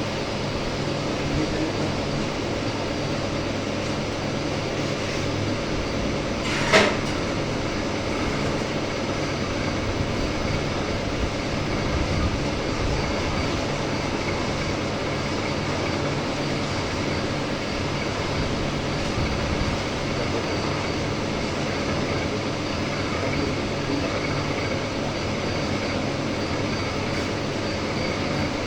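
CNC milling machine running steadily, a continuous machine noise with a few held tones, and one sharp knock about seven seconds in.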